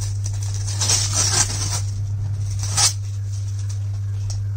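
Fingernails scratching at and peeling packing tape off a cardboard box, in short scratchy bursts, the sharpest about three seconds in, over a steady low hum.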